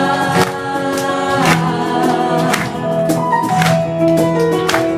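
Instrumental passage of a Christian worship song: held chords over a steady beat that strikes about once a second, with no lead vocal.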